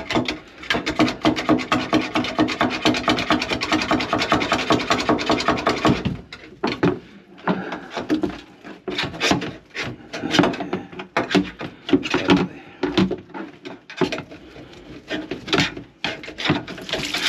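Quick, rhythmic rasping strokes for about six seconds, then slower, irregular scraping: a kitchen sink drain being scraped and scrubbed clear of packed grease and food.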